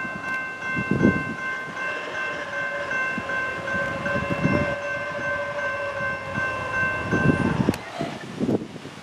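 Norfolk Southern GE D9-40CW diesel locomotive sounding a long air-horn blast as the train approaches, the horn cutting off sharply about seven and a half seconds in, over the low rumble of the oncoming train.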